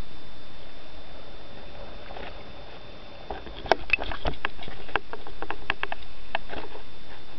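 Water lapping and splashing against a sailing kayak's hull, with a quick run of sharp slaps and patters about halfway through.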